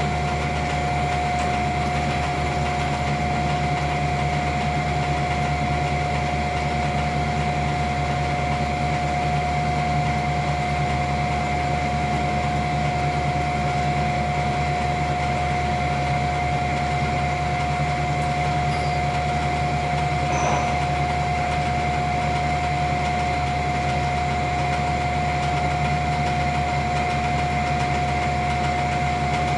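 Roskelley 1440 14 x 40 engine lathe running steadily under its 3 HP motor, with its 3-jaw chuck spinning: a steady whine over a low hum.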